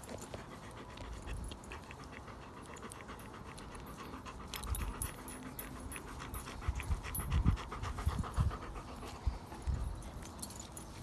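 Adult Irish setter panting rapidly at close range, with a few low thuds and bumps in the second half.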